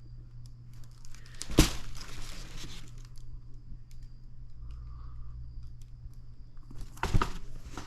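Shoe packaging crinkling and rustling as it is handled, with a loud sharp rustle about one and a half seconds in that trails off over about a second, and another short sharp one near the end.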